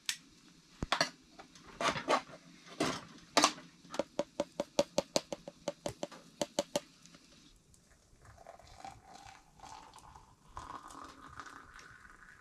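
A tin of ground coffee and chicory opened with a few sharp clicks and scrapes, then grounds tapped out of the tin into a glass French press in a quick run of about seven taps a second. About halfway through, hot water poured from a cast-iron kettle into the press, its pitch rising steadily as the press fills.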